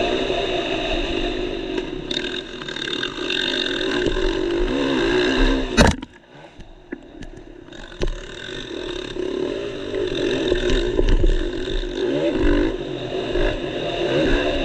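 Motocross dirt bike engine heard from the rider's helmet camera, revving up and down as the bike is ridden hard round the track. A sharp bang a little under halfway through is followed by about two seconds of much quieter running before the engine comes back up to full noise.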